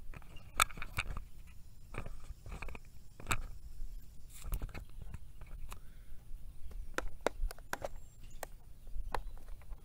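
Scattered clicks and knocks of handling over a low rumble: the camera being gripped and moved, and plastic tackle boxes pushed about on a wooden picnic table.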